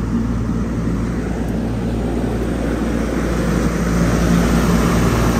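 Two freshly installed three-phase condenser fan motors on a Carrier rooftop package unit starting up and running, the fans moving air with a steady rush over a low hum that grows slightly louder over the first few seconds as they come up to speed. The compressor is switched off, so only the fans are running.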